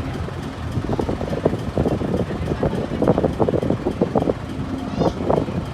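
An engine running steadily under a dense low rumbling noise, with wind buffeting the microphone.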